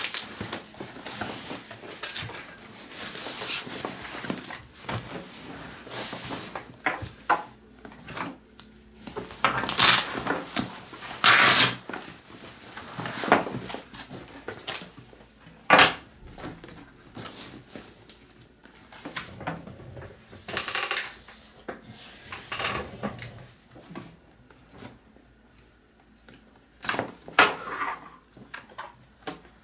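A Vanguard Up-Rise 28 camera bag being handled: fabric rustling, scattered clicks and knocks, and a few louder scraping strokes of about half a second each, bunched about a third of the way in.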